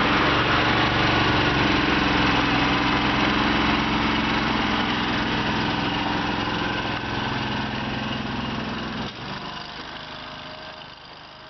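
Honda V-twin engine of a Boxer Brute TRX tracked mini skid steer running steadily, growing slightly quieter, then stopping abruptly about nine seconds in.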